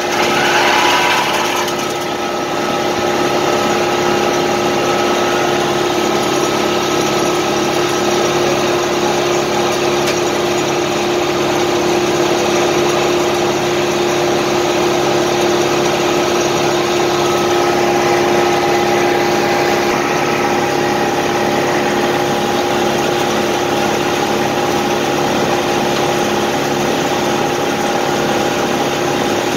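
Tractor engine running steadily to power a circular sawmill on a test run, with a steady hum and a few held tones. A brief louder rush of noise about a second in.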